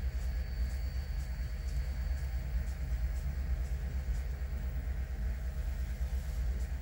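Recorded diesel-engine sound from the sound decoders of Broadway Limited N-scale EMD SD40-2 models, played through the Rolling Thunder subwoofer system: a steady, deep locomotive engine rumble, the prime movers working hard as a heavy coal train labours up a 2% grade and nearly stalls. A faint, regular clicking runs along with it.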